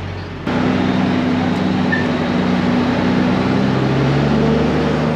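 Heavy truck engine and road noise, heard from inside the cab of a 2001 Peterbilt 379 with a Cat C15 diesel. It jumps sharply louder about half a second in, then holds steady, with a low engine hum that shifts pitch a few times.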